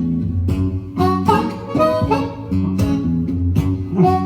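Blues harmonica playing held, wailing notes between vocal lines, over acoustic guitar picking out a slow blues accompaniment.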